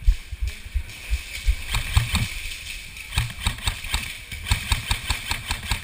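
Irregular low thumps throughout, with a run of sharp clicks in the second half, about four or five a second.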